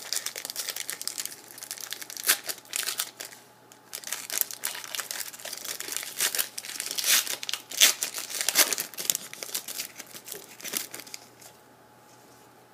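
Crinkling and tearing of a trading-card pack wrapper as a pack is handled and opened, in irregular rustles that stop near the end.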